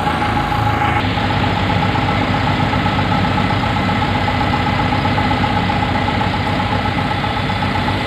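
Self-loading concrete mixer's diesel engine running steadily, with a steady whine on top of the engine's rapid even beat.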